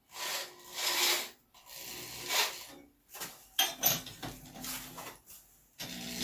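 Snowblower engine being spun over by a power drill through a socket on the flywheel nut, in about three short bursts of a second or so each, to check for ignition spark.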